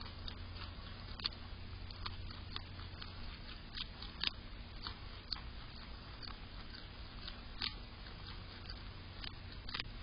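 A groundhog biting and chewing a raw carrot, with irregular sharp crunches every half second or so; the loudest bites come about four seconds in and just before eight seconds.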